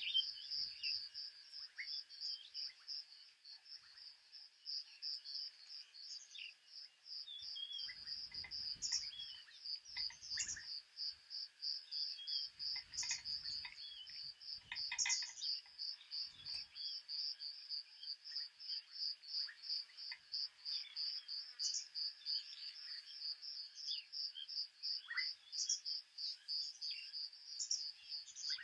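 Cricket chirping steadily in a rapid, even pulse, with a few faint bird calls over it.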